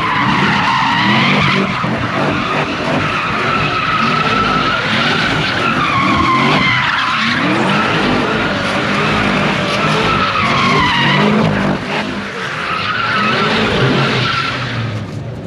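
Cars spinning donuts, tyres squealing continuously in a wavering, rising-and-falling pitch over revving engines. The squeal stops shortly before the end.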